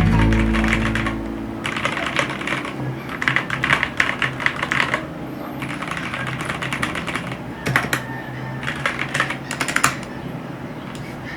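Typing on a Fantech MaxCore MK852 mechanical keyboard fitted with lubed Gateron Milky Yellow linear switches. The keystrokes come in bursts of rapid clacks with short pauses between them.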